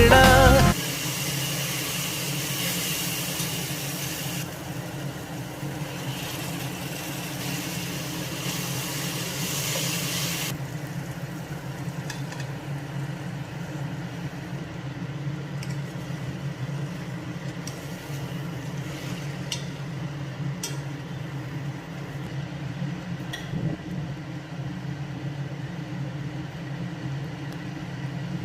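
A steady low hum with a hiss over it that cuts off about ten seconds in, leaving the hum alone with a few light clicks.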